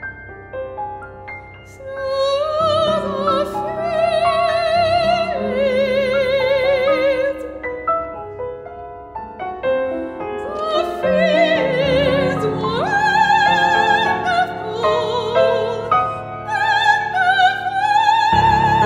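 Classical soprano singing an art song with wide vibrato over piano accompaniment. Piano alone for about the first two seconds, then the voice enters; the singing eases off briefly in the middle, sweeps upward in pitch, and ends on long high held notes.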